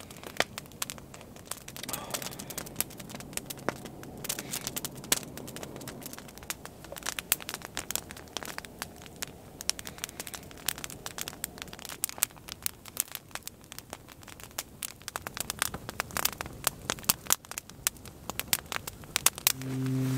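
Wood campfire crackling, with many sharp pops and snaps at irregular intervals.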